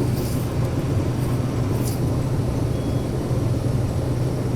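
Case IH 2388 combine running steadily while harvesting corn, a constant low engine and machinery drone heard from inside the cab, with a couple of faint high clicks in the first two seconds.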